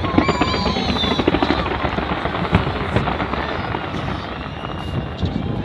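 Fireworks crackling and popping in a dense, rapid barrage, busiest in the first couple of seconds and thinning a little after.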